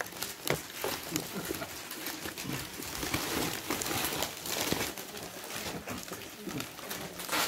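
Gift-wrapping paper rustling and crinkling in irregular crackles as a present is cut open with scissors.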